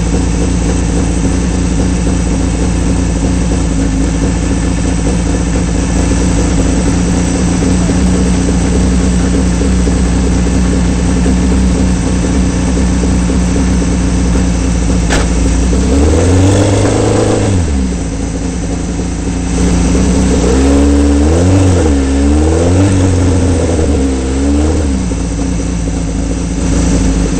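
Osella PA9 sports-prototype racing engine idling steadily, then blipped. There is one rev a little past halfway, and a few seconds later a run of three or four quick revs before it settles back to idle.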